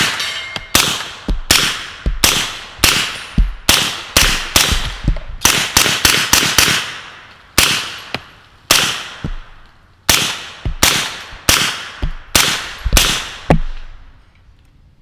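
Suppressed B&T GHM9 9mm carbine firing a semi-automatic string of about two dozen shots with 147-grain subsonic ammunition, roughly two shots a second with a short pause near the middle. The gun cycles every round without a malfunction.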